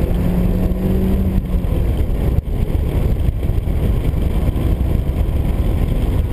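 Honda Civic sedan's engine and road noise while it is driven at speed on a track, with a steady engine note through the first two seconds. There is a brief dip in loudness about two and a half seconds in.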